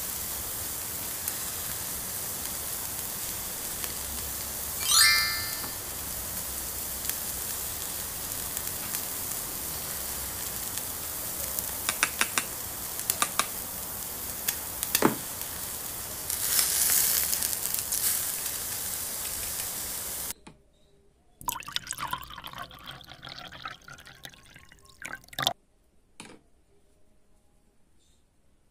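Plastic toy kitchen pieces (spoon, bowl, toy pan and pretend egg and noodles) clicking and tapping against each other over a steady hiss, with a short falling chirp about five seconds in. The hiss cuts off abruptly about twenty seconds in, leaving only scattered light plastic clicks and rustles.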